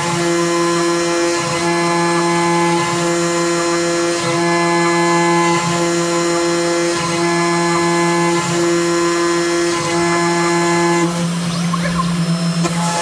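CNC router spindle running with an end mill cutting white plastic: a steady whine that dips briefly about every second and a half as the cutter works around, with the tone changing near the end.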